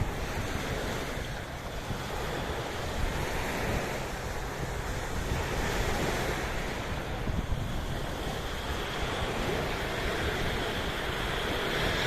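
Sea waves washing in, a steady surf that swells and eases every few seconds, with wind buffeting the microphone.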